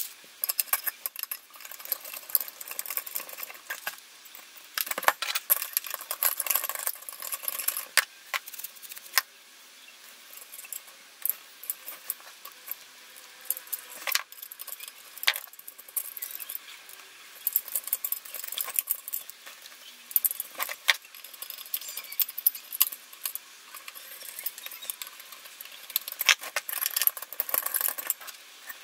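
Irregular metallic clinks, sharp clicks and scrapes from hand work on a small aircraft instrument: a screwdriver and small parts knocking against its metal frame during reassembly.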